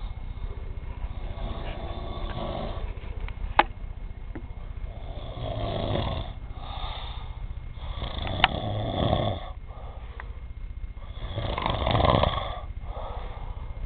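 Snoring: three long snores in the second half, each swelling and fading, about three seconds apart. Quieter breathing comes before them, with a couple of sharp clicks.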